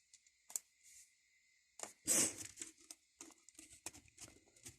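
Flat-head screwdriver prying at a Nokia 2730's plastic casing. A single click comes first, then a louder scraping crackle about two seconds in, followed by a run of small plastic clicks.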